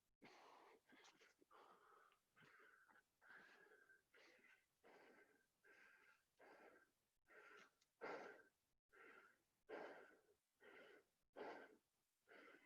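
Faint, fast, heavy breathing from hard exertion, about one breath a second, with a thin whistle in each breath; several breaths grow louder in the second half.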